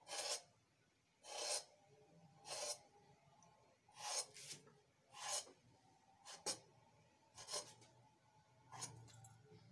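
A knife drawn through rolled bread dough and scraping the stone countertop beneath, in short rasping strokes about once a second, some eight cuts in all, slitting the dough's sides into strips.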